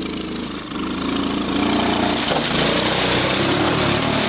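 Small ride-on tractor's engine running, picking up in revs about a second in and holding there as it drives into the mud.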